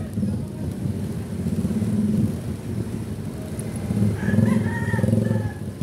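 Small motorcycle engine running steadily at low speed, with a pulsing low hum. About four seconds in, a higher wavering call sounds over it for a second or so.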